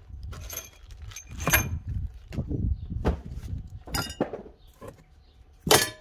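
Unpacking sounds: cardboard and a plastic bag of bolts being handled, with scattered clinks, rustles and small knocks, and one sharper knock near the end.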